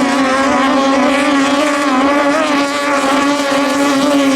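Racing speedboat's eight-cylinder engine running flat out at high, nearly steady revs, its pitch wavering slightly.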